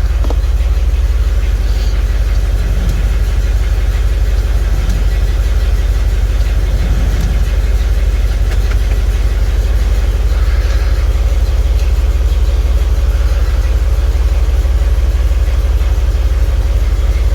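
1995 GMC C1500 idling, with its heater/A/C blower fan running steadily on high. The high setting comes on only when the fan control is moved just right, a fault the owner puts down to a melted blower speed-relay connector.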